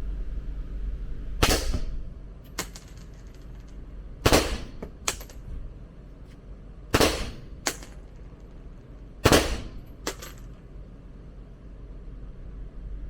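Four gunshots from a firearm at a shooting range, fired singly about two and a half seconds apart, each followed less than a second later by a fainter sharp crack.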